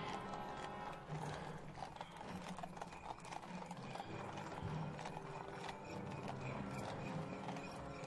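Horses' hooves clip-clopping in a steady clatter on hard ground, several animals walking together.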